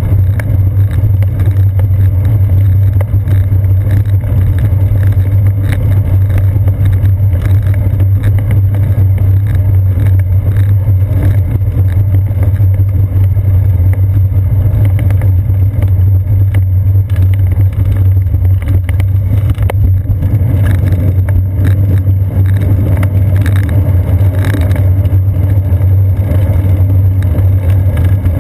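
Loud, steady low rumble of a moving bicycle, picked up by a GoPro Hero 2 mounted on the seat post: road vibration from the tyres on a brick street carried into the camera, mixed with wind noise.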